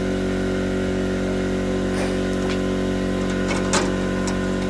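A steady machine hum from a running motor, with a few light clicks and taps about two to four seconds in.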